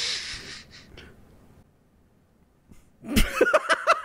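A sharp breath of air into a microphone at the start, fading within about a second, then about three seconds in, men break into loud laughter, in quick repeated bursts.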